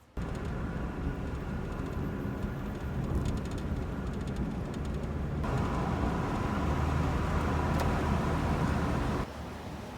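A vehicle running, a steady low rumble with a faint steady whine added about halfway through. It starts and cuts off abruptly.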